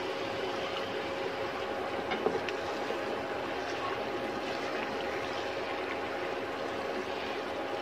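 Chicken curry sizzling and simmering in a pan on an induction cooktop, with a steady hum under it, as water is poured in and a spatula stirs the pan, knocking against it sharply once a little over two seconds in.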